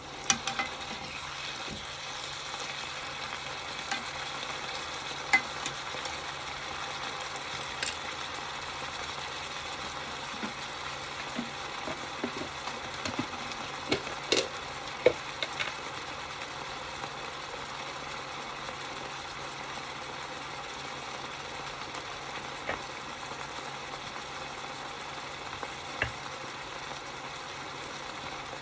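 Ground beef with chopped peppers and onions frying in a nonstick pot, sizzling steadily. A few sharp clicks and knocks are scattered through, most of them around the middle.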